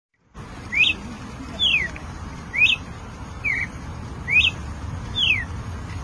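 A cardinal singing: clear whistled notes at a slow, even pace, about one a second, alternating a note that rises then drops with one that slides steadily down in pitch, over a low background rumble.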